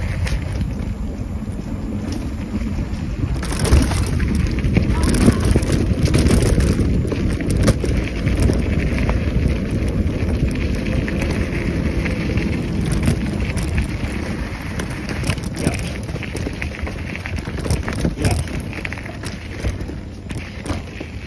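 Wind buffeting the microphone over the rumble of mountain-bike tyres on a dirt trail, with frequent knocks and rattles from the bike. It is loudest a few seconds in and eases off near the end.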